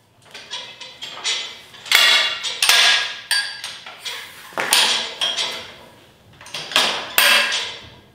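Chicago Electric heavy-duty mobile miter saw stand being folded up: its metal extension arms clank and rattle as they swing down and lock against the frame, with a string of sharp knocks, the loudest about 2 and 3 seconds in and again around 5 and 7 seconds in.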